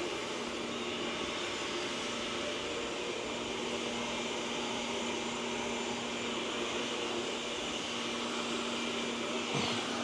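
Steady mechanical hum with a constant low tone and an even hiss, unchanging throughout.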